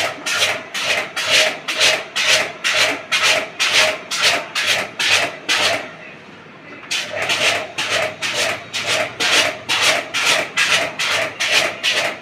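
Rapid, regular rasping strokes, about three a second, with a pause of about a second near the middle.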